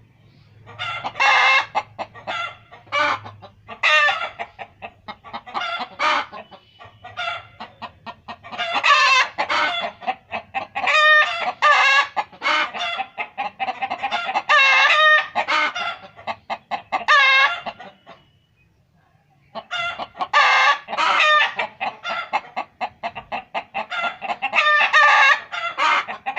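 Chickens clucking in dense runs of short, rapid calls, with a break of about a second and a half roughly two-thirds of the way through.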